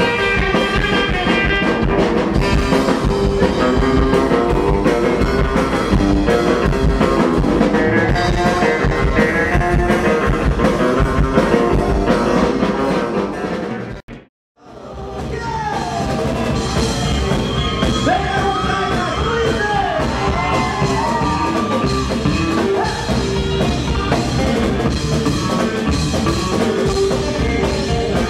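Live rockabilly band playing, with upright bass, electric guitar and drums. The music cuts out briefly about halfway, then another song starts with a singing voice.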